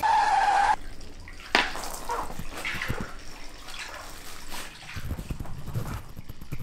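A brief electronic buzz at the start, then a Samoyed mouthing and chewing a wet artificial aquarium plant, with irregular wet clicks and drips.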